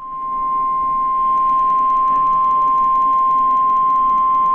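NOAA Weather Radio 1050 Hz warning alarm tone: one steady, unbroken tone over radio static hiss, swelling to full level in the first second. It is the alert signal that sets off weather radio receivers ahead of a watch or warning broadcast.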